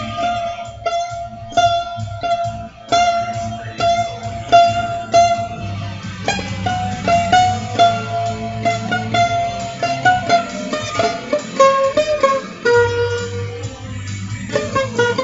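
Guitar improvisation: a quick melodic line of single plucked notes that keeps returning to one high note, over a steady low sustained background.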